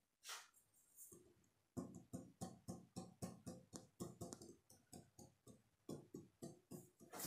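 Quiet instrumental background music: a run of quick, evenly paced plucked notes, about four a second, starting about two seconds in.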